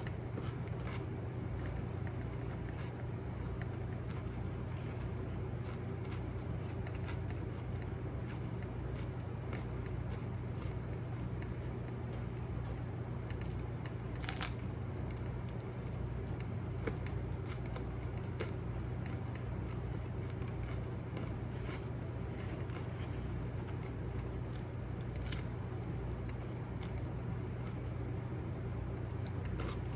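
Steady low drone of a car being driven, heard from inside the cabin, with scattered small clicks and rattles.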